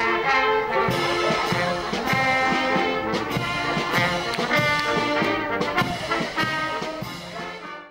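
Brass band music with trumpets and trombones over a steady beat, fading in the last second and stopping abruptly.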